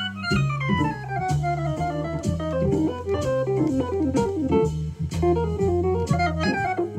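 Akai EWI electronic wind instrument playing a fast jazz solo line, opening with a long descending run. Behind it is an organ-trio backing track of Hammond organ, bass and drums.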